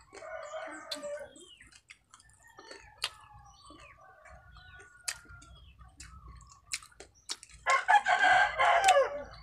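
A rooster crowing, with a short crow at the start and a long, loud crow near the end. Sharp crunches of crispy fried crab being chewed are heard between the crows.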